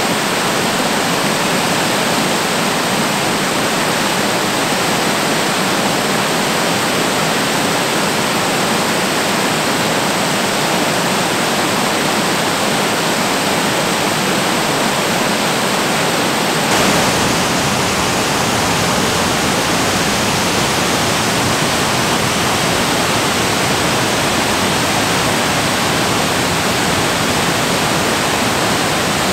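Water pouring over a low weir, a steady loud rush. About halfway through it changes to a fuller, lower rush of a waterfall tumbling over rock.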